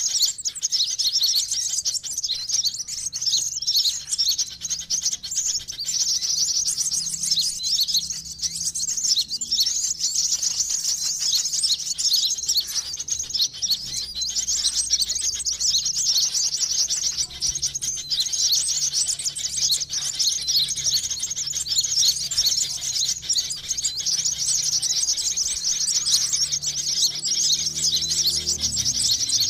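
Sunbird lure call: a dense, unbroken chorus of rapid, high-pitched chirps and twitters from several sunbirds calling over one another.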